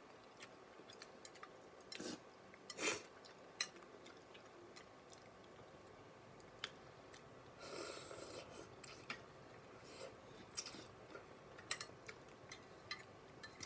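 A person eating instant noodles: faint chewing and slurping, with scattered light clicks of chopsticks against the bowl and one longer slurp a little past the middle.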